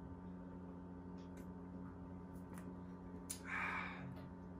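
A man gulping down beer from a glass, with a few faint swallowing clicks, then one breathy exhale about three and a half seconds in as he finishes. A steady low hum runs underneath.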